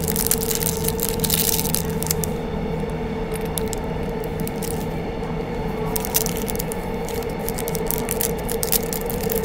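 Plastic zip-lock bags crinkling and rustling as small metal pieces are handled, in spells during the first two seconds and again in the last few seconds, over the steady rumble and hum of a moving commuter train.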